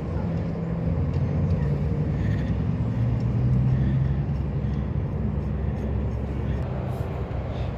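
A motor vehicle engine running steadily with a low hum whose pitch rises a little midway and then settles, with faint clicks over it.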